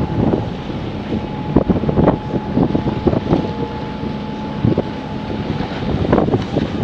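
Wind buffeting the microphone over the rush and irregular splashing of choppy sea water along the hull of a sailboat under way.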